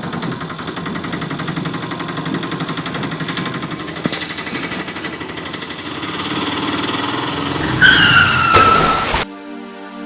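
Vehicle engine running steadily, growing louder, with a short falling squeal near the end that cuts off abruptly.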